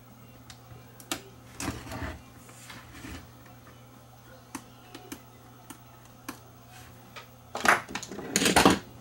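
Small clicks and taps of a screwdriver and fingers on a cassette deck mechanism's metal chassis as a screw is taken out, with two louder bursts of handling noise near the end.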